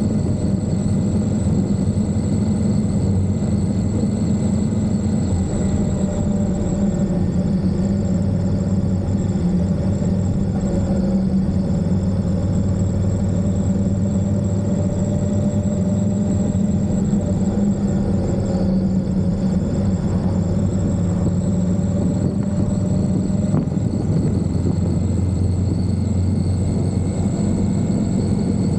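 Indian Scout motorcycle's V-twin engine running at a steady cruising speed, a constant drone that holds its pitch.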